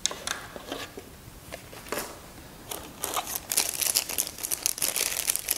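Light knocks and scrapes as a plastic packaging tray is lifted out of a cardboard box, then loud crinkling of a clear plastic bag being handled and opened from about three seconds in, as the radio's antenna is unwrapped.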